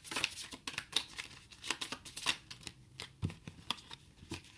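A deck of cards being shuffled by hand: rapid papery flicks and riffles that thin out in the second half, with a couple of soft knocks near the end.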